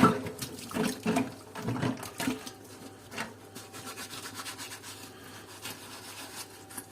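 Old plastic dome-light parts being scrubbed with dishwashing powder: irregular rubbing and scraping strokes, louder in the first couple of seconds and fainter after.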